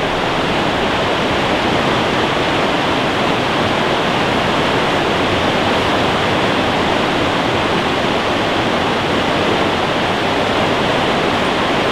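Creek water rushing steadily over a shallow riffle, a loud, even rush.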